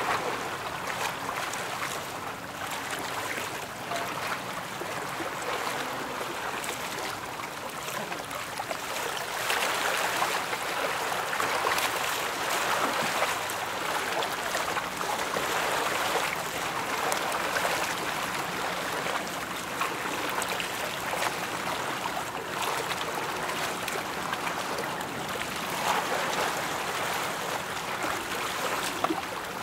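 Steady rush and splash of choppy water, swelling a little about ten seconds in.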